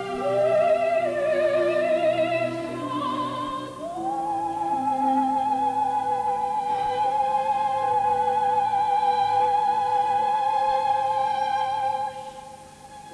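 Operatic soprano singing with wide vibrato over orchestral accompaniment: a rising phrase, then about four seconds in a glide up to one long held high note that lasts until near the end.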